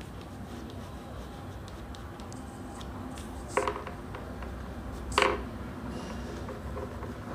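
Dark green oil pastel rubbing across drawing paper, a faint dry scratching, with two short louder scrapes about three and a half and five seconds in, over a steady low hum.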